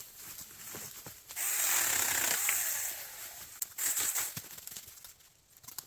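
Saker mini cordless chainsaw briefly cutting through a small stem of wood, a burst of about a second and a half that starts about a second in and then dies away, followed by a couple of sharp clicks.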